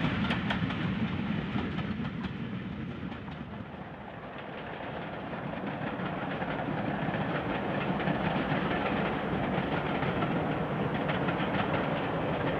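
Railway coaches running past with a clickety-clack of wheels over rail joints, fading over the first few seconds. Then the steady rumble of a steam-hauled train building up and holding.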